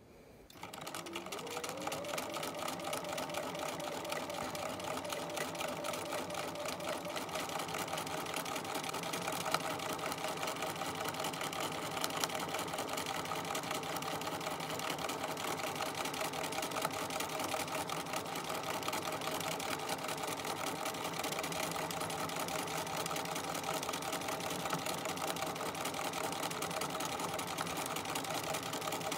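Bernina sewing machine stitching at speed for free-motion quilting, feed dogs down: the motor winds up about a second in, then runs steadily with a fast, even needle rhythm.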